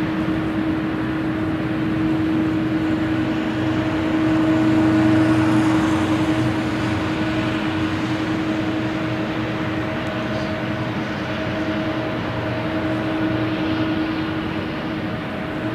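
United Airlines Boeing 777 taxiing on its jet engines at idle. It is a steady whine over a rumble, with a constant drone and a slight swell about a third of the way in.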